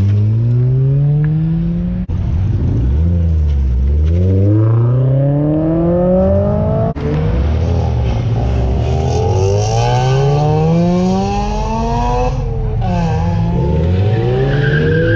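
Car engines accelerating hard away, one after another, each revving up in pitch and dropping back at the gear changes.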